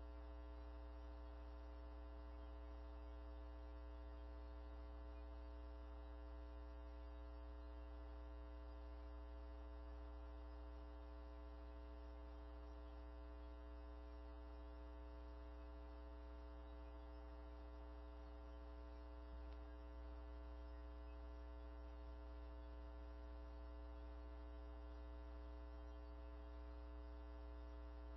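Steady, faint electrical hum with a stack of evenly spaced overtones, unchanging throughout; no other sound.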